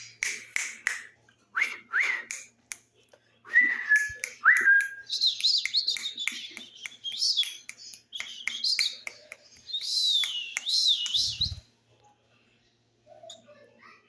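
Young pet parrots calling: a busy run of short chirps and squawks with sharp clicks, two brief whistled notes about four seconds in, then higher wavering calls that die away after about eleven seconds.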